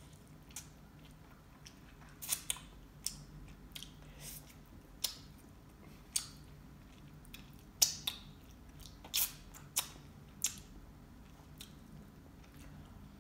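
Close-miked eating: a person chewing French fries with the mouth, giving about a dozen short, sharp wet clicks and smacks at irregular intervals.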